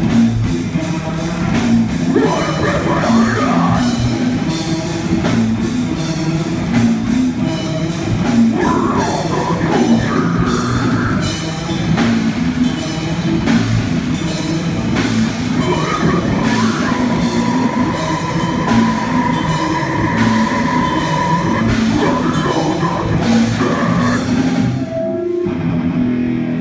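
Live rock band playing loud and hard, with a drum kit pounding a driving beat under electric guitar.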